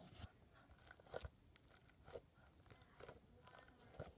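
Near silence with faint, scattered crackles and soft pops, roughly one a second, from fluffy slime being stretched and squeezed in the hands.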